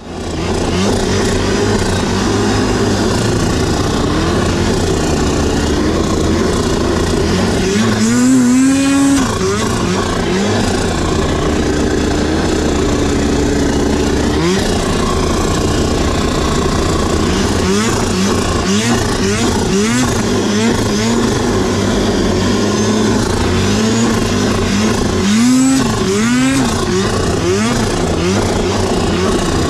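Snowmobile engine running as it is ridden, its pitch rising and falling as the throttle is worked. It revs up sharply about eight seconds in, and quick throttle blips repeat through the second half.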